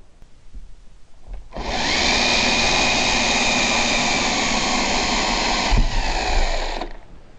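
Cordless drill spinning up with a rising whine and running at steady speed for about five seconds, boring into the plastic liner lock strip on the timber pond wall, with a knock near the end before it stops suddenly.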